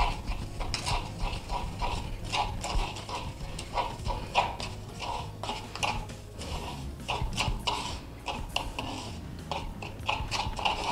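Garlic and salt being pounded into a paste in a small mortar with a pestle: a run of short knocks, uneven, about two or three a second.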